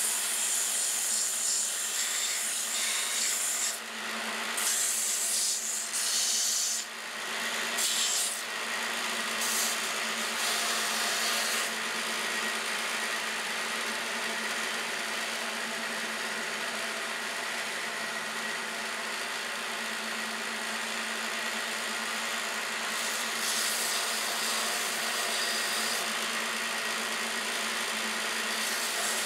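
A wooden whirligig wing blade is pressed against a running narrow vertical sanding band. It gives spells of rasping hiss, each time the wood bears on the abrasive, over the machine's steady motor hum. The rasping comes in several bouts through the first dozen seconds and again briefly near the end.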